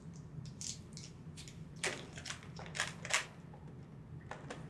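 Light clicks and taps of board game pieces being handled and tried in place, several in a row, the loudest about two and three seconds in.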